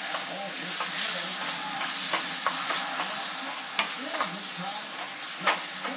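Cubed chicken breast sizzling as it fries in hot olive oil in a pan, with a utensil stirring it and clicking against the pan a few times.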